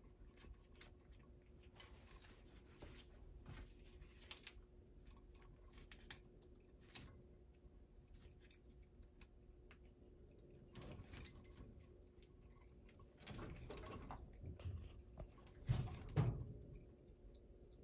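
Small clicks and rustles of gloved hands and wire strippers working thin low-voltage wire leads, with a couple of louder bumps about three quarters of the way through. A faint steady hum runs underneath.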